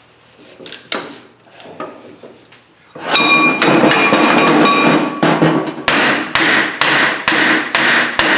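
Hammer blows on the steel shaft of a 2 hp electric motor to drive the rotor out and break the end bell loose. A few light taps come first, then about three seconds in a fast, loud run of metal-on-metal strikes with a ringing tone, then separate hard blows a little over two a second.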